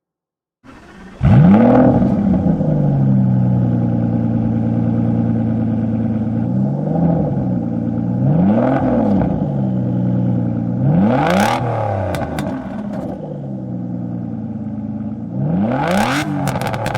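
Car engine starting up about a second in, flaring up in revs as it catches and then settling to a steady idle. It is revved and let back down four times: a light blip, then three sharper revs.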